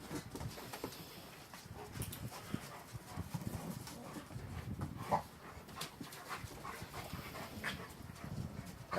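Dogs and puppies play-wrestling: scuffling, clicking claws and panting, with one sharper sound about five seconds in.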